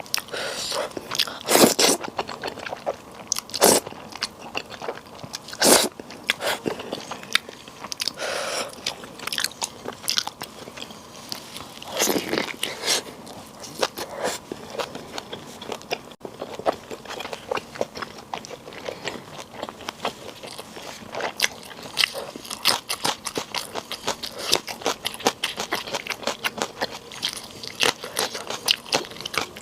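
A person eating and chewing with wet clicking sounds, with several loud crunchy bites, the loudest about 2 s and 6 s in.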